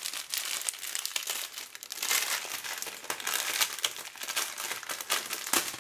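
Clear plastic packets of diamond-painting drills crinkling as they are handled. The crackle grows busier and louder about two seconds in.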